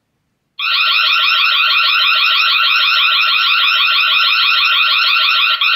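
Tapo H200 smart hub sounding its alarm siren, a loud electronic tone with a fast warble, starting about half a second in and holding steady. The siren is set off because the door or window contact sensor has been opened.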